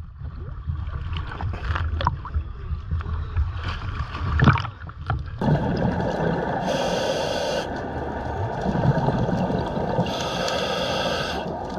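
Choppy water slapping and splashing around a camera at the sea surface. About five seconds in the sound turns to a steady underwater rush, with a scuba regulator hissing twice, about a second each time, as a diver breathes in.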